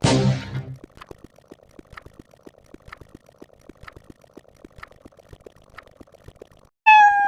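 Counting sound effects: a loud falling whoosh-like effect at the very start, then faint short clicks about once a second, and near the end a cat meow sound effect falling in pitch.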